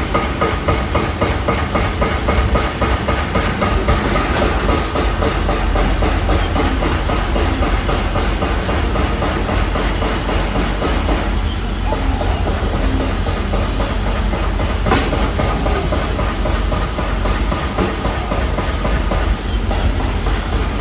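Construction-site noise: continuous loud machinery clatter with a fast rattle and a heavy low rumble, and one sharp bang about fifteen seconds in.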